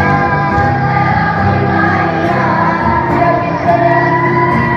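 Music with a group of voices singing long held notes in chorus, a Maori song accompanying the poi dance.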